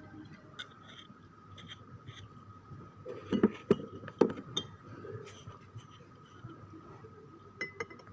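Glassware clinking and knocking while a jamu drink is mixed, with scattered light clinks, a cluster of louder knocks around the middle and two more clinks near the end. A faint steady high tone runs underneath.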